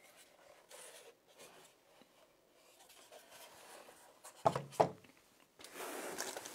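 Handling noise from items being lifted out of a carrying case: faint rustling, two sharp knocks close together about four and a half seconds in, then a longer rustle near the end.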